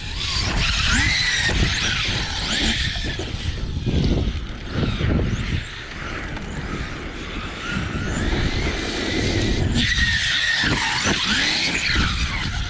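Large-scale electric RC truck on 12S running hard: its brushless motor whine rises and falls again and again with the throttle, over steady tyre and ground noise.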